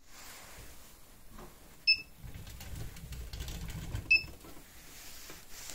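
Doersup 12.7 handheld inkjet marking printer printing onto a rubber hose: two short beeps about two seconds apart, with a low rolling rumble between them as the printer is run along the hose.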